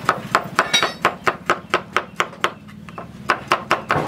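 Hand-forged cleaver, made from tractor plough-disc steel, chopping a vegetable on a wooden cutting board: rapid sharp chops about five a second, with a short pause about two and a half seconds in before the chopping resumes.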